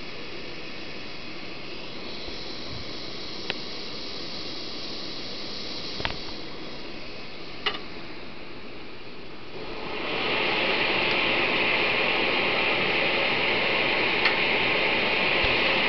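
Vintage 1980s Optimus 199 pressure stove burning Coleman fuel (white gas) with a steady hiss, growing louder about ten seconds in. A few faint clicks come in the first half.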